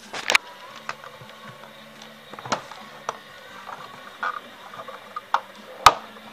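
Hand handling the plastic air filter housing and its retaining clips: a run of sharp, irregular clicks and knocks, about seven in all, the loudest just before the end, over a faint steady hum.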